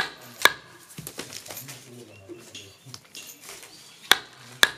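Wooden mallet striking a wooden rammer to pack firework composition tightly down into a paper tube. Two sharp knocks about half a second apart at the start, lighter taps in between, and two more sharp knocks near the end.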